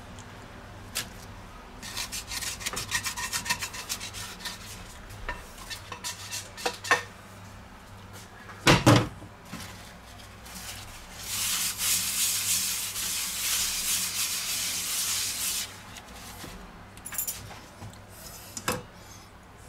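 Plastic spatula scraping a stuck spring roll wrapper off a nonstick frying pan in quick strokes, then one loud knock of the pan or utensil about halfway through, followed by several seconds of steady rubbing in the pan.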